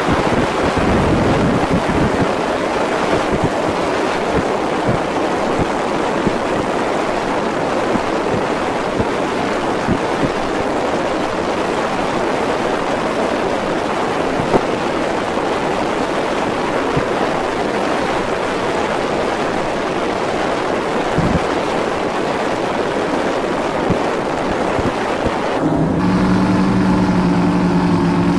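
Motorboat underway: a loud, steady rush of wind and water over the running motor. About 26 seconds in, the sound cuts abruptly to a steady engine idle hum.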